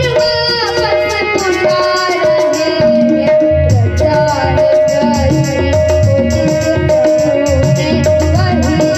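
Devotional bhajan music: a harmonium playing a melody over a steady rhythm of hand-drum strokes and jingling percussion.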